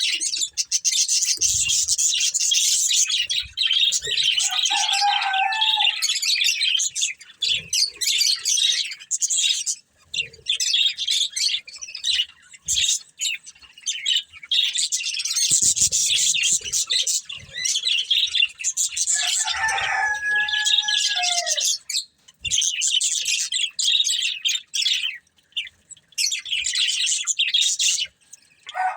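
Pet budgerigars chattering and chirping in a fast, continuous twittering warble, with a few short pauses. Twice, about five seconds in and again about twenty seconds in, a lower, drawn-out call sounds through the chatter.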